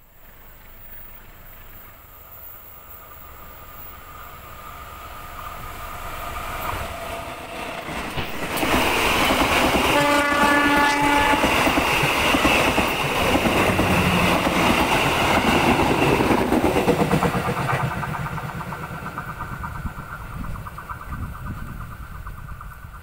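Diesel-hauled passenger train approaching at speed and growing steadily louder. About ten seconds in, as it reaches the trackside, it gives a short horn blast. The coaches then rush past clattering over the rails, and the sound fades as the train draws away.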